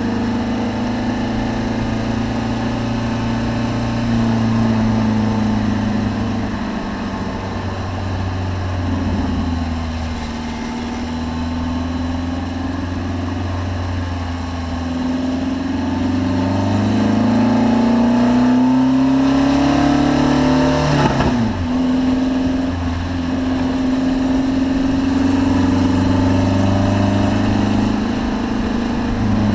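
Car engine running under way, mostly at steady revs; in the middle the pitch climbs gradually, then drops sharply, and the engine settles back to a steady note.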